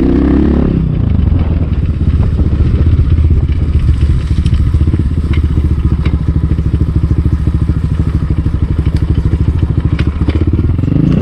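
Enduro motorcycle engine running steadily at low revs, a loud, rapid, even pulse with a few faint ticks over it.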